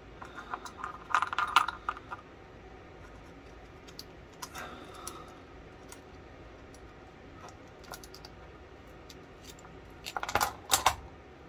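Light metallic clicks and clinks of small steel gun-lock parts and locking pliers being handled while the pistol's mainspring is held compressed. There is a cluster of clicks in the first two seconds, a few scattered ones mid-way, and a louder pair of clatters near the end.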